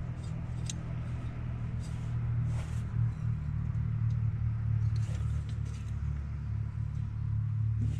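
A vehicle engine idling: a steady low rumble. A few light clicks and rustles come from a camping gas burner being handled and fitted onto its canister.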